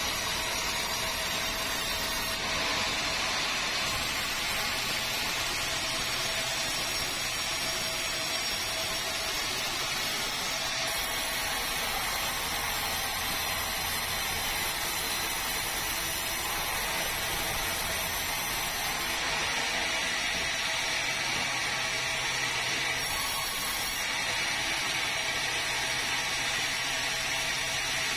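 Sawmill's vertical band saw running steadily as it saws a large red meranti log, a dense, even mechanical din.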